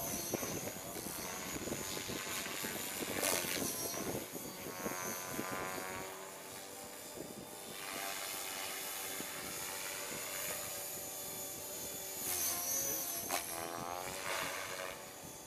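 Align T-Rex 500 EFL Pro radio-controlled electric helicopter flying: a steady whine from motor and rotor whose pitch glides up and down as it manoeuvres. It grows louder twice, a few seconds in and again near the end, as it passes closer.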